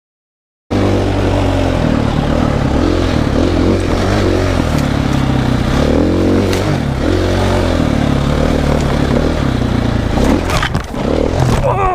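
Dirt bike engine running hard, its revs rising and falling as it is ridden over rough ground, with clatter and knocks from the bike. Near the end the revs drop away sharply and the engine settles to a steady idle.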